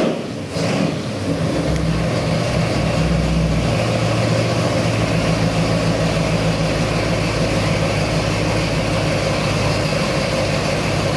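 Ford 347 stroker small-block V8 crate engine on a dyno, dropping off the end of a full-throttle pull and then, about a second in, settling into a steady idle.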